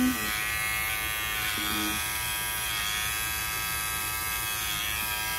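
Purrrl pet clipper buzzing steadily as it shaves the hair from between a small dog's paw pads.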